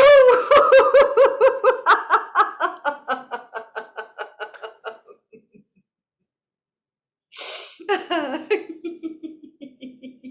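A woman laughing deliberately in a laughter-yoga 'sneeze laughter' exercise, the laugh that follows a pretend 'achoo'. A fast run of ha-ha-ha pulses fades out over about five seconds. After a pause, a short breathy burst comes, then another, lower run of laughter tapers off.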